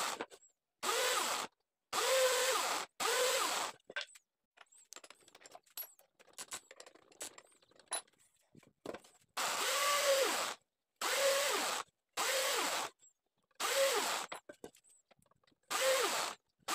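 Benchtop drill press boring holes in wooden boards: short bursts of the motor running and the bit cutting into the wood, each a second or less and ending abruptly, about three at the start and six more from about nine seconds in. Between them, a quieter stretch with only scattered small clicks and rattles.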